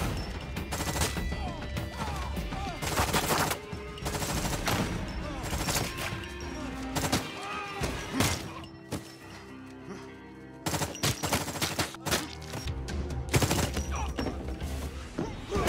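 Film-soundtrack gunfire: scattered gunshots and short bursts of rapid fire over a tense music score, with a quieter stretch a little past the middle.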